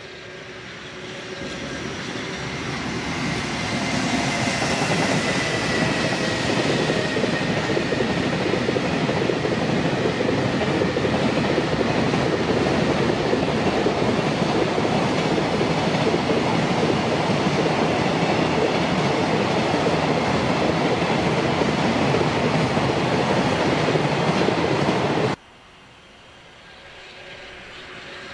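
An electric freight train hauled by an EF210 locomotive passes close by with a long string of container wagons. The noise of wheels on rail builds over the first few seconds into a loud, steady rolling clatter. About 25 seconds in it cuts off suddenly, and a quieter train sound begins rising again.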